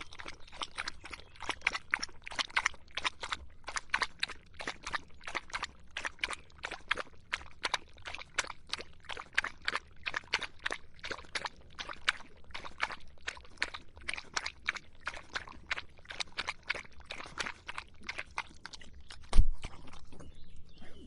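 Dog lapping water with its tongue, an even run of wet laps about three to four a second. A single heavy low thump near the end is the loudest sound.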